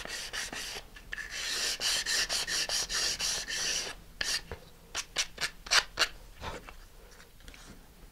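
Sandpaper on a sanding stick rubbed back and forth against the edge of a balsa wood fin piece, trimming the edge back. Quick, closely spaced strokes at first, then about four seconds in a handful of slower, separate strokes, dying away near the end.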